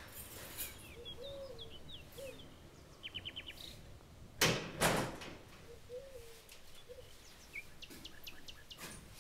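Outdoor bird ambience: small birds chirping, with one short rapid trill and a low cooing call that comes back several times. Two loud sharp knocks sound about halfway through.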